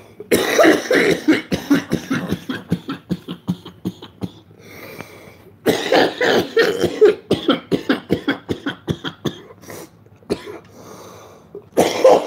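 A man coughing hard from harsh, thick joint smoke: a long fit of rapid, repeated coughs, a second fit starting about halfway through, and a third starting near the end.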